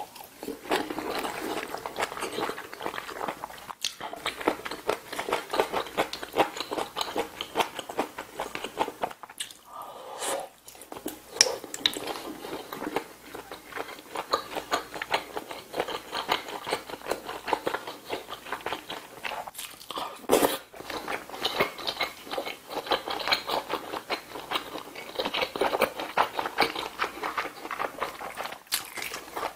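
Close-miked chewing and biting of braised kimchi stew with pork and rice, continuous mouth sounds, with a few sharp clicks of a spoon on the dishes, the loudest about two-thirds of the way through.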